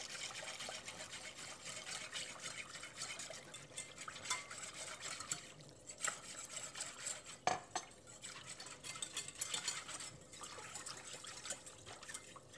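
A whisk stirring a thin gravy of stock and roux in a saucier, a fast wet scraping against the pan bottom to loosen stuck flour. One sharper knock of the whisk on the pan comes about seven and a half seconds in.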